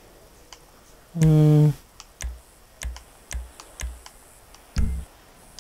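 Sharp clicks of keys or buttons being pressed, one every half second or so. A short hummed voice sound comes about a second in.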